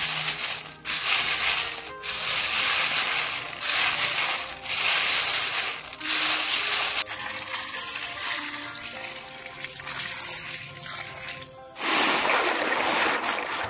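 Wet river snail shells clattering and rattling against each other and the bamboo basket as a hand rakes through them, in repeated sweeps about a second long. Near the end comes a louder rush and splash as the snails are tipped from the basket into a tub of water.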